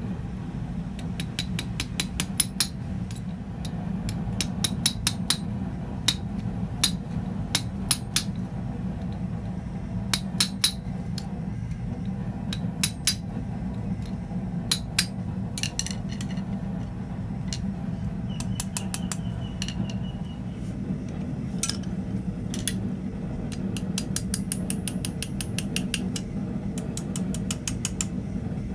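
Hand hammer striking red-hot steel on an anvil, bending over the split prongs of a forged finial: runs of quick, ringing blows with short pauses between, over a steady low hum.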